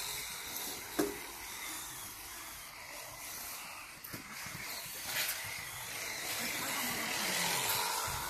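1:10-scale electric RC rally cars driving: a steady hissing whine of small electric motors and tyres on the court surface, with a sharp knock about a second in.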